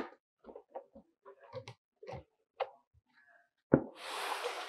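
Cardboard box being handled: a string of light taps and rubs, a sharp knock about three-quarters of the way in, then about a second of cardboard scraping as the box's top flap is pulled open.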